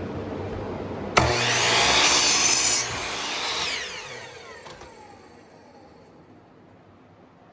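Power saw cutting a 2x4: the blade goes into the wood about a second in, with a loud cut lasting under two seconds. The saw's whine then falls away as the blade spins down.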